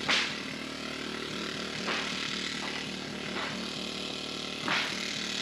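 A small engine running steadily, with three sharp impacts spread through it, the first right at the start.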